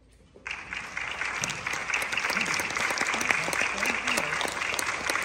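Audience applause breaking out suddenly about half a second in after a brief hush, dense clapping that holds steady, with a voice or two calling out through it.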